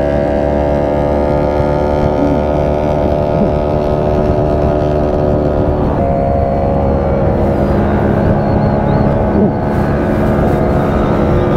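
Motorcycle engines running steadily at cruising speed, with wind and road noise. The engine note shifts once, about six seconds in.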